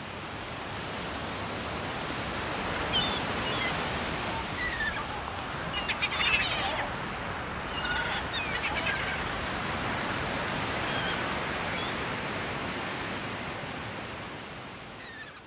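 Steady wash of surf, with short high bird calls scattered through the middle, fading out at the end.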